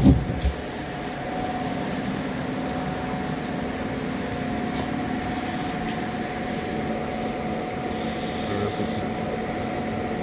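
A couple of knocks as logs are handled in a pickup bed at the start, then a steady machine hum with a constant tone that holds level throughout.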